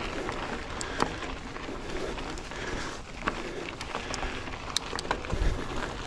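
Mountain bike riding a dirt trail: a steady rush of tyre and trail noise with frequent sharp clicks and rattles from the bike, and a brief low rumble about five seconds in.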